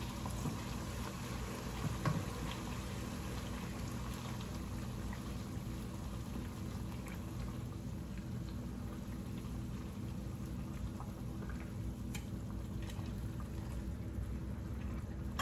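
Boiling water poured from a small pot into a hot pan of oil-fried seasonings and tomatoes, the liquid bubbling in the pan, with a few light clicks.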